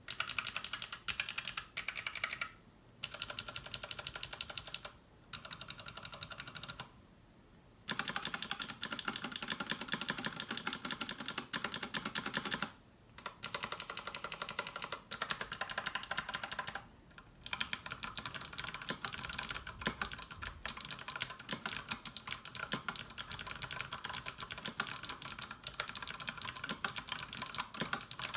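Fast typing on a custom 60% mechanical keyboard fitted with Kailh Box Navy heavy clicky switches (80 g). It has an aluminium plate in a wooden case. Every keystroke gives a sharp, loud click, and the typing stops briefly several times.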